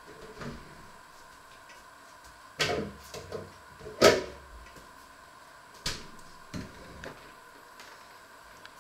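A handful of sharp knocks and clunks as things are moved around in a kitchen, the loudest about four seconds in.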